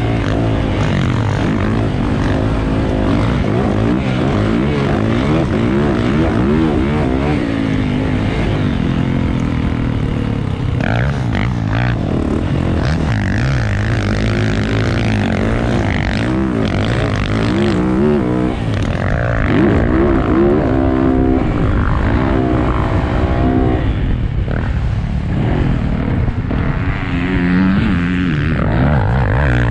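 A vehicle engine running without a break, its pitch repeatedly rising and falling as it revs up and down.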